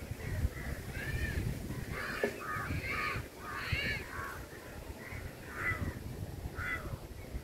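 Birds calling repeatedly, a run of short calls clustered from about one to four seconds in and a few more near the end, over a low background rumble.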